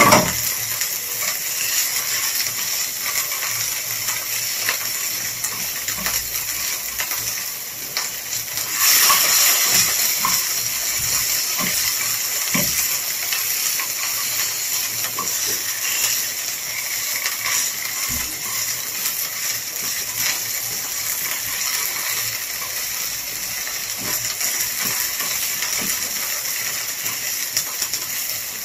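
Garlic and tomato sizzling as they fry in butter in a nonstick frying pan over a low gas flame. A wooden spatula stirs them, with light scrapes and taps. The sizzle swells louder about nine seconds in.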